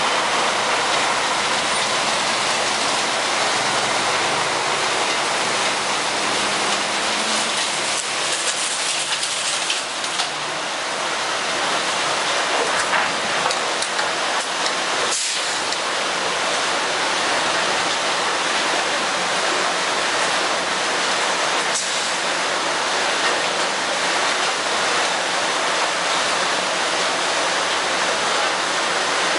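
Wood chips pouring from an overhead loading chute into a chip trailer: a steady rushing hiss, with a brief dip about ten seconds in and a single sharp click about fifteen seconds in.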